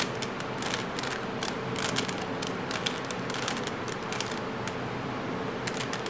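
Stickerless plastic 3x3 Rubik's cube being turned by hand through a run of face turns: quick, irregular plastic clicks and clacks as the layers snap round.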